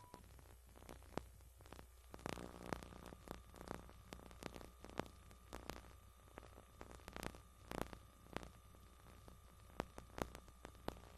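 Faint steady hum and hiss with scattered, irregular clicks and pops: background noise of a VHS tape transfer with no programme sound on it.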